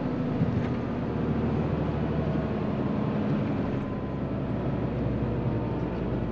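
Hino semi-truck's diesel engine running steadily at low speed, heard from inside the cab as an even hum.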